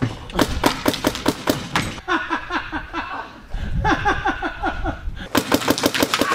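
Paintball gun fired in quick volleys of sharp shots, about four or five a second, with balls smacking on their target. Between the volleys comes a fast run of short, rhythmic cries from a person.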